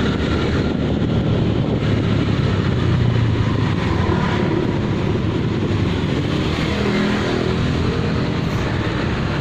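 Steady road noise from a moving motorcycle: its engine running with wind on the microphone as it rides past a line of stopped trucks, with another engine's hum becoming audible near the end.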